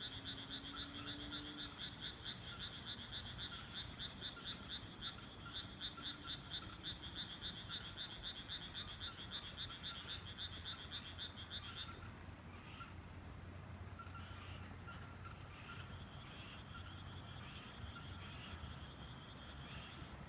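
A chorus of frogs in a rice paddy, calling in rapid pulsed croaks at about four or five a second. The chorus drops away about twelve seconds in and picks up again a couple of seconds later.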